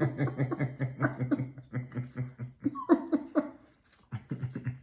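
A person laughing in a long run of quick, rhythmic pulses, breaking off briefly near the end and then laughing again.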